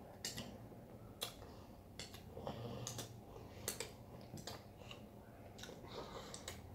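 Mouth smacks and sucking clicks of fingers being licked clean after eating: about a dozen short, sharp clicks at an uneven pace.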